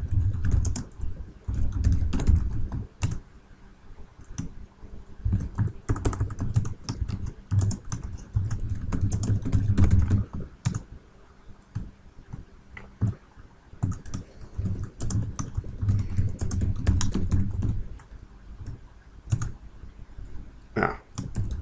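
Typing on a computer keyboard: runs of quick keystrokes with short pauses between them, as Forth commands are entered.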